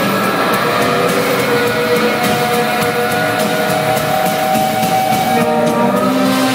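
Live rock band playing a slow instrumental passage without vocals: long, droning held guitar notes and chords over steady light cymbal taps.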